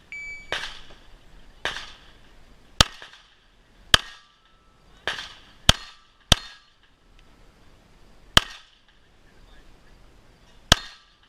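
A shot timer beeps once to start the stage. Then comes a string of about nine gunshots at irregular intervals, some louder and sharper than others, with a faint ringing tone after several of them.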